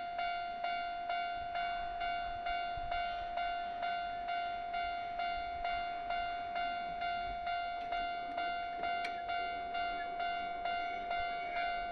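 Japanese level-crossing warning bell ringing in a steady, even rhythm of about two strikes a second, the signal that a train is approaching the crossing.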